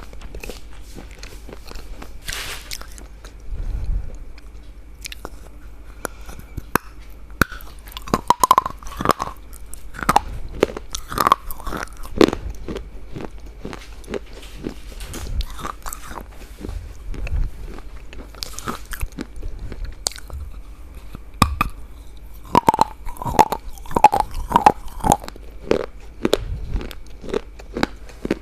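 A person biting and chewing something crunchy: irregular sharp crunches that come in quick clusters, with pauses in between.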